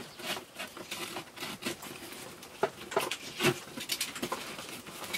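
Utility knife slitting the top of a cardboard box, with a run of irregular scratches, clicks and taps as the cardboard is cut and handled.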